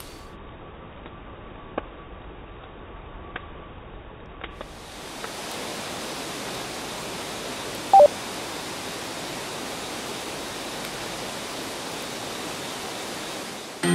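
Wood campfire burning: a steady hiss of flames with a few faint crackling pops in the first few seconds. About eight seconds in, a brief loud two-note beep, the second note lower.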